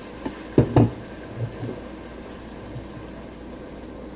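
Blended sweet pepper and onion sauce bubbling and sizzling in a stainless steel pot on the stove. A few dull knocks come in the first two seconds, the loudest two close together just under a second in.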